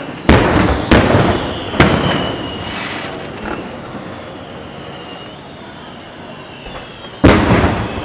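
Fireworks display: aerial shells bursting with loud bangs, three in quick succession in the first two seconds and one more near the end, with a fading noisy tail after each burst.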